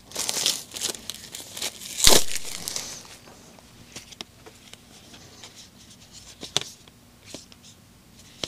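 Cardboard game cards and packaging rustling and crinkling as they are handled, with one sharp snap about two seconds in. After that, only a few light taps as cards are set down.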